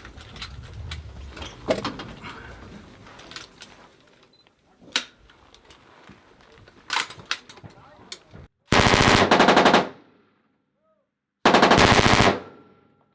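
Handling clicks and knocks, then two bursts of automatic fire from a belt-fed machine gun, each about a second long and a couple of seconds apart.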